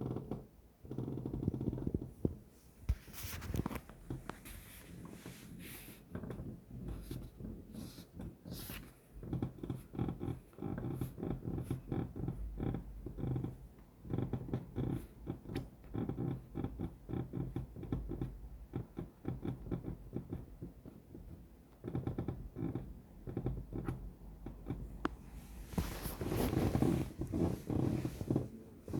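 Secretlab Titan EVO 2022 gaming chair making a rough, rapid crackling-creaking noise. The noise comes in irregular louder and quieter stretches, the fault that the title calls a terrible noise.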